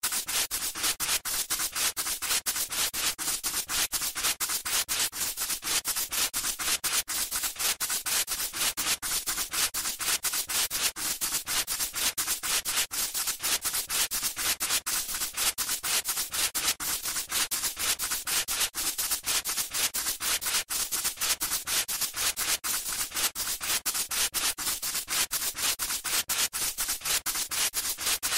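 Dense, even scratching and crackling noise made of many rapid small clicks, starting abruptly out of silence.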